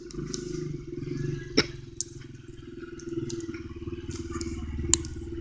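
Small dirt bike engine running steadily as it is ridden at low speed. Two sharp clicks stand out, about a second and a half in and near the end.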